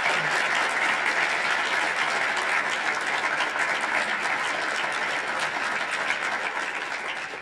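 Audience applauding, a dense, even clatter of many hands clapping that slowly grows softer near the end.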